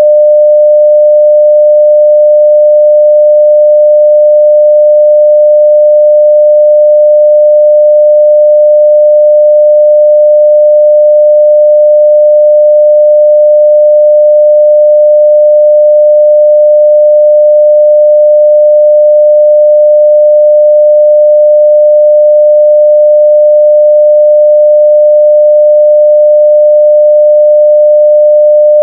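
A steady 600 Hz sine-wave test tone at full level (0 dB), one unchanging pitch with no breaks.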